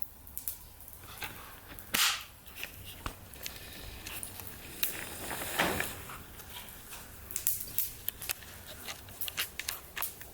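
Campfire crackling: irregular sharp pops and snaps over a soft hiss, with a brief louder rush of noise about halfway through.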